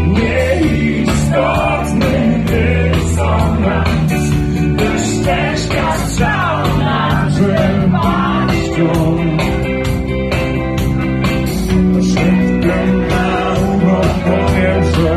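Live band performing a song with a male singer singing over electric guitar, bass and drums, heard from within the audience.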